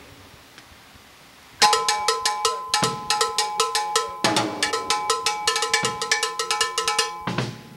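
Cowbell struck with a drumstick, playing the fast, steady bell pattern of the comparsa conga rhythm in the Oriente style, with a few low drum hits mixed in. It starts about a second and a half in and stops shortly before the end.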